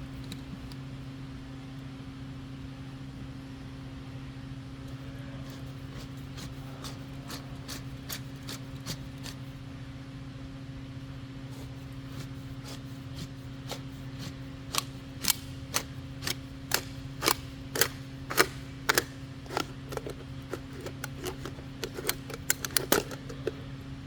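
A used spin-on oil filter's steel can being cut open with a cutting tool: faint clicks at first, then a run of sharp clicks or snaps, about two a second, over a steady low hum.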